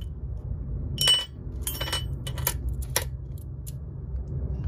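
New transmission roller bearings clinking and tapping as they are handled and set down, about half a dozen light metallic clinks, one with a short ring, over a steady low hum.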